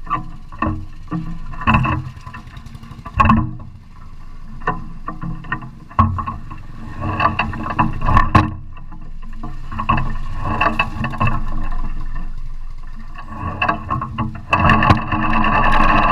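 Motorcycle engine running at idle, with irregular knocks and rattles over it; music comes in loudly near the end.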